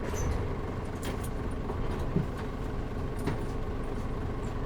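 Cabin sound of a 2003 Mitsubishi Fuso Aero Star KL-MP37JM city bus, its diesel engine running with a steady drone. A few light rattles from the cabin come about one, two and three seconds in.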